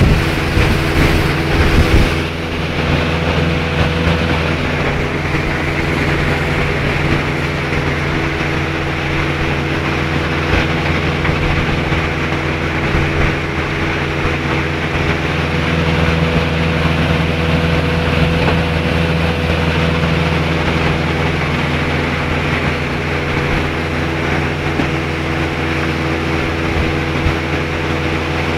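Soviet Vikhr two-stroke outboard motor running at a steady cruising speed while the boat is underway. Gusty rushing noise, like wind on the microphone, covers the first two seconds.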